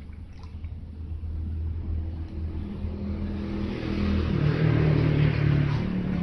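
A motor vehicle's engine passing close by, growing louder to a peak about five seconds in, with the engine note stepping up in pitch partway through.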